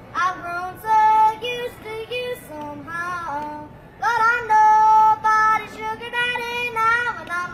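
A young boy yodeling, his voice flipping abruptly back and forth between a low chest note and a high falsetto note about an octave above, in two phrases with a short break between them.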